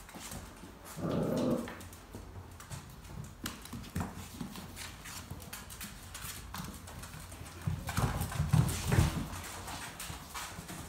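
Dogo Argentino puppies play-fighting: their claws click and scrabble on a hard vinyl floor, with a short growl about a second in and louder growling and scuffling near the end.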